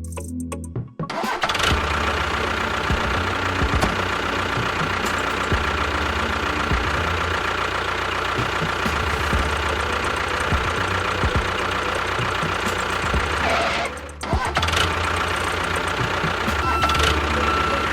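A motor running steadily, starting about a second in, cutting out briefly about three-quarters of the way through, then starting again.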